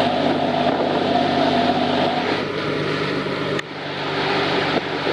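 Motorboat engine running steadily under way, with loud wind and water noise; the sound changes abruptly about three and a half seconds in.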